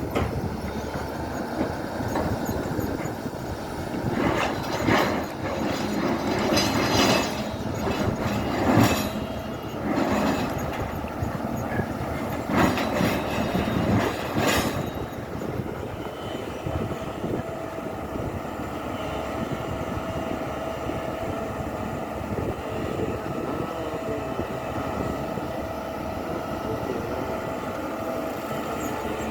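SANY hydraulic excavator running steadily while digging, with a run of loud metallic clanks and scrapes through the first half, then an even drone with a thin steady whine.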